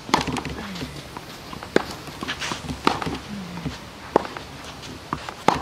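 Tennis ball knocks on a clay court, about five sharp racket hits and ball bounces a little over a second apart, with shoes scuffing on the clay between them.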